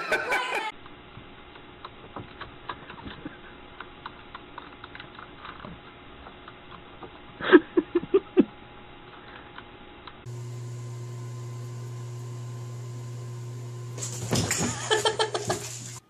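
Computer keyboard keys clicking irregularly, broken about halfway by a quick run of five loud pitched sounds. Then a steady low hum comes in, with a short loud burst of pitched sounds near the end.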